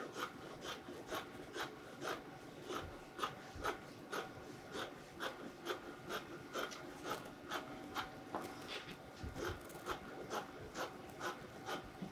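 Dressmaking shears cutting through Ankara wax-print cotton fabric, a steady run of snips at about two to three a second.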